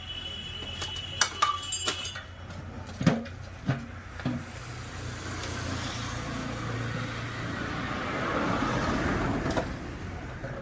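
Sharp metallic knocks and clinks of motorcycle parts being handled during reassembly, over a steady low hum, then a rushing noise that swells and stops about nine and a half seconds in. The motorcycle's engine is not yet running.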